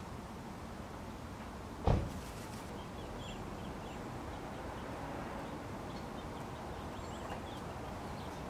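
A crow taking off with a single short, loud whoosh of its wings about two seconds in, over a steady outdoor hiss. Faint high chirps of small birds come through the second half.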